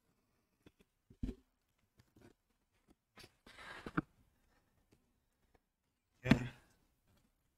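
Box cutter slicing through the packing tape of a cardboard shipping box: small clicks, then a scraping cut lasting just under a second about halfway. Near the end comes a louder thump and rustle as the box is moved on the table.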